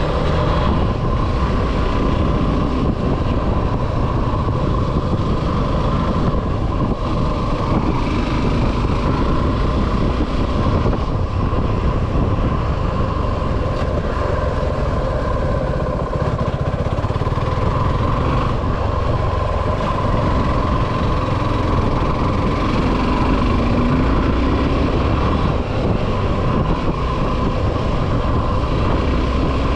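Suzuki V-Strom 250 SX's single-cylinder engine running steadily while riding, mixed with wind and road noise. The engine note rises briefly a little past two-thirds of the way through.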